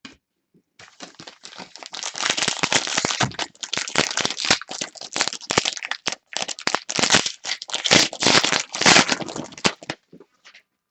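Plastic foil wrapper of a trading card pack crinkling and crackling as it is torn open and handled, dense and irregular for about nine seconds.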